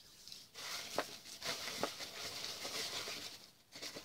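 Rustling and crinkling of packaging being handled, with a few light clicks about one to two seconds in.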